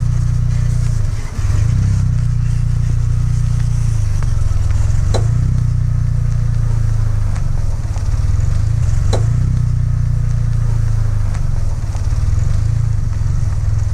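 Car driving slowly, a steady low rumble of road and running noise, with two sharp clicks about five and nine seconds in. These are the popping noise from the front suspension when turning, which the owner suspects comes from a loose stabilizer link or a worn tie rod end.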